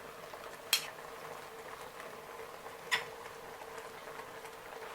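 Two light clinks of a utensil against a cooking pot, about two seconds apart, over a faint steady hum.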